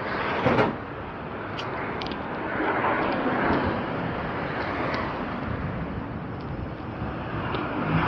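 Road traffic passing alongside, a steady rush that swells as vehicles go by a few seconds in and again near the end. A brief loud thump about half a second in.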